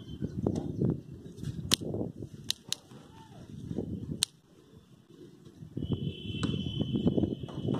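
Torque-clutch collar of a cordless driver-drill being turned by hand, clicking through its numbered settings: four sharp clicks, the last about four seconds in. Low rumbling handling noise runs underneath.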